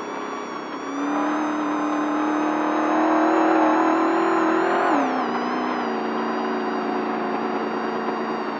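Desert race truck's engine pulling under throttle, its pitch climbing steadily, then dropping sharply about five seconds in and holding steady at a lower note, over a steady rushing noise.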